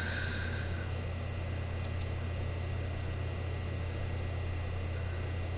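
Room tone: a steady low hum with a faint hiss, and two faint mouse clicks about two seconds in.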